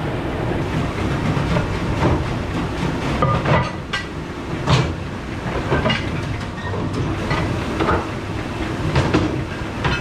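Plastic dish racks, trays and plates clattering as they are handled and stacked, with a steady low machine rumble underneath.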